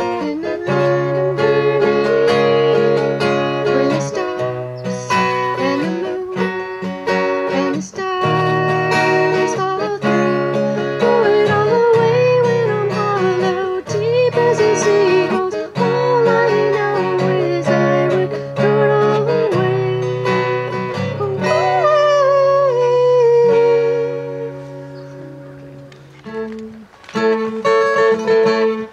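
Acoustic guitar strummed with a woman's voice singing a wavering melody over it. The song winds down and rings out about 24 seconds in, and a new guitar pattern starts near the end, opening the next song.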